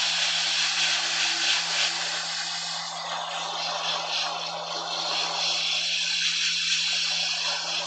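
Best BST-863 hot air rework station blowing at full airflow through its handpiece: a steady rush of air over a steady low hum, as it heats a surface-mount IC on a laptop board to desolder it.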